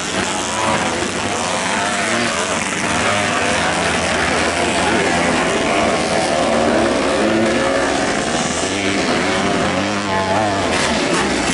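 Several vintage motocross motorcycles racing on the track, their engines revving up and down and overlapping.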